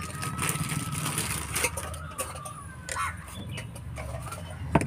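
Plastic bag crinkling and rustling as a new MICO diesel filter is handled and drawn out of its packaging, with a sharper click near the end. A steady low rumble and a few bird calls sit underneath.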